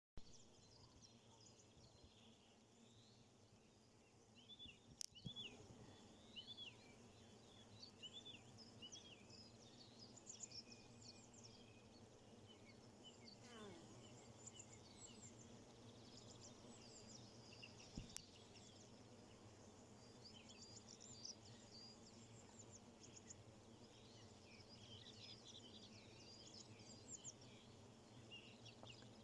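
Faint birdsong: many small birds chirping in quick, short calls over a low background hum, thickening after the first few seconds. There are two sharp clicks, and about halfway one long downward-gliding sound.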